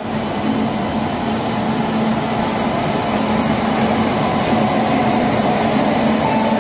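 Electric locomotive running slowly alongside a station platform: a steady whir with a low hum underneath.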